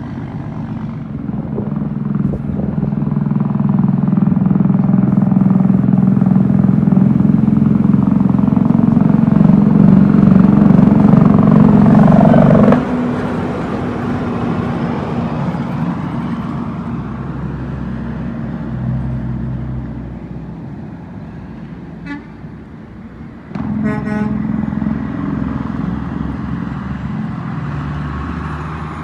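Heavy diesel tractor-trailer running past, its low engine note building for about twelve seconds and then dropping away suddenly. About two-thirds of the way through, a short horn toot, followed by another truck's engine coming up.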